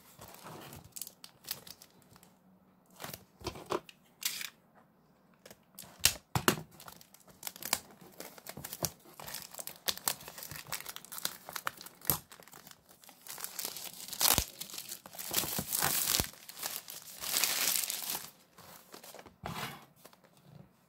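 Clear plastic shrink wrap being torn and peeled off a cardboard box: crackling, crinkling plastic with scattered sharp clicks and taps, busiest and loudest in a long stretch a little past the middle.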